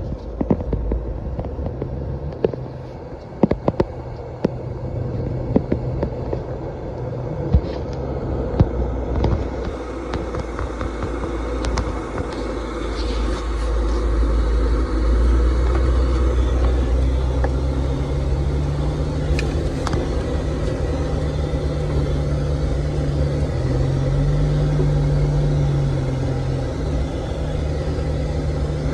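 Motor vehicle engine running at low speed, its pitch stepping up and down, with sharp knocks and rattles through the first ten seconds or so, as if jolting over rough ground.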